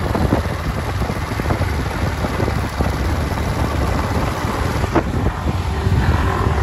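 Motor scooters running along a road, with heavy wind rumble on the microphone.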